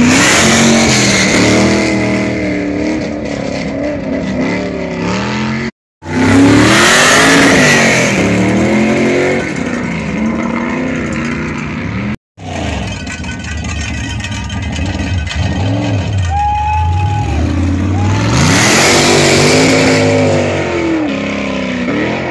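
Off-road race buggy engines revving hard and accelerating away from the start on a dirt hill climb, the engine pitch climbing and dropping through gear changes. Three separate runs, each cut off suddenly.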